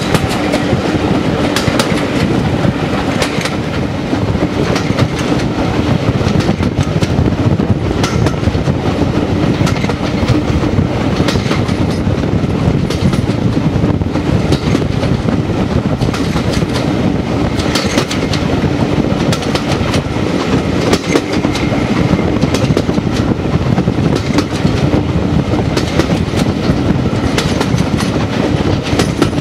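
Heritage steam train's coaches running along the track, heard from an open carriage window on the moving train: a steady loud rumble and rush of air, with wheels clicking over rail joints at uneven intervals.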